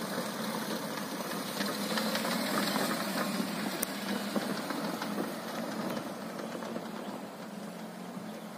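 Maruti Suzuki Alto 800's small three-cylinder petrol engine running as the car drives past over a stony dirt track, with tyres crunching on gravel. It gets louder as the car passes close, about two to five seconds in, then fades as it pulls away.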